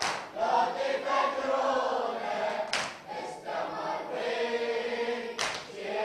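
A congregation of men chanting the refrain of a Shia latmiya mourning chant in unison, in long sung phrases with short breaks about every three seconds.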